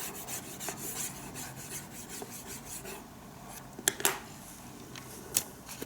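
Faint scratchy rubbing on a hard surface, with a few sharp clicks about four seconds in and one more shortly after.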